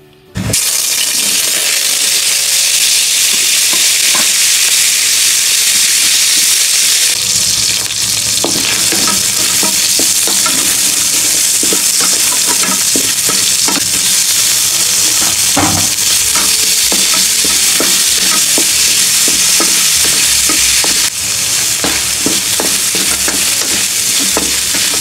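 Pork and pork liver pieces sizzling loudly in hot oil in a wok, starting suddenly as the meat hits the pan. From about seven seconds in, a wooden spatula stirs them, knocking and scraping against the pan.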